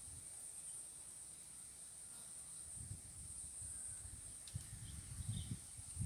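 Insects chirring in a steady high-pitched drone, with low gusts of wind rumbling on the microphone that grow stronger near the end.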